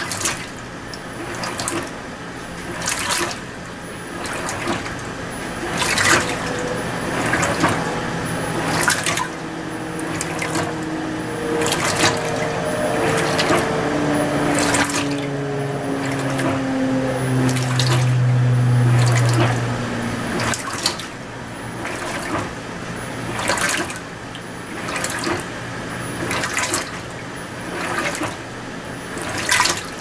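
Electrolux LTM16 Direct Drive top-load washing machine agitating a load in water on its gentle Delicate program during a rinse. The water swishes in surges about every one and a half seconds as the agitator changes direction. A faint low hum slides down in pitch through the middle.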